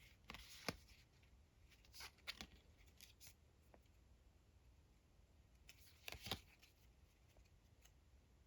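Faint handling of trading cards: a few short rustles and light taps as cards are slid and flipped through, coming about half a second in, around two and three seconds in, and again about six seconds in.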